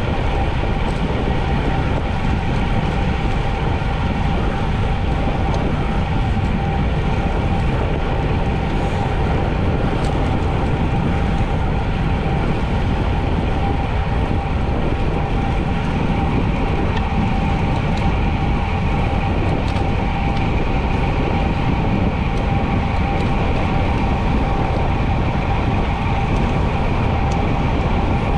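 Wind rushing over a bike-mounted action camera's microphone while a bicycle is ridden at speed: a steady, loud rumble with a constant thin whine running through it.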